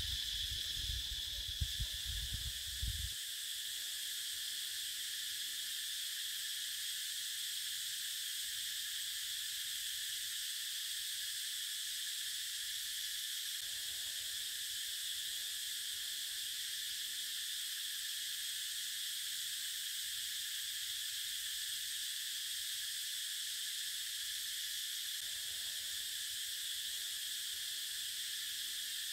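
A steady, high, unbroken insect chorus droning without pause. There is some low rumbling in the first three seconds.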